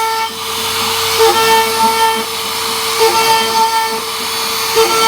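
CNC router spindle whining as it carves wood, a steady high tone that dips briefly about every two seconds as the cutter's load changes.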